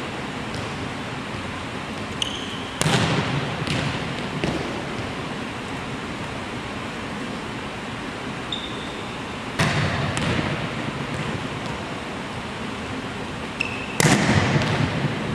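A volleyball being spiked three times on a hardwood gym court: each hit is a sharp smack with a long echo off the gym walls, and each comes just after a brief sneaker squeak on the floor. Lighter knocks of the ball bouncing on the floor follow the hits.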